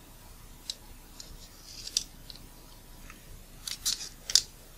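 A thin flat metal pick scraping and clicking at the rigid, sticker-like front ring of a Nikkor 24-85mm VR lens as the ring is pried up. It gives scattered small, sharp clicks and scrapes, the loudest few about four seconds in.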